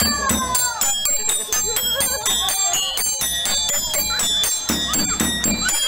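Live percussion accompanying a street monkey show: a hand drum and metallic, bell-like percussion struck in rapid, steady strokes, with some wavering tones over the beat.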